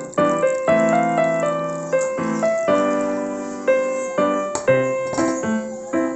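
Background music: a piano playing chords and melody notes, each struck and then slowly dying away.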